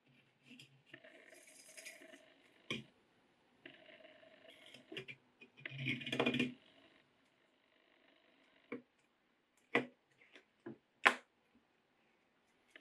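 White stitching thread pulled off a small plastic spool in three bursts, with the spool turning and rattling on a cutting mat, loudest about six seconds in. Then several sharp clicks and taps on the mat, the loudest about eleven seconds in.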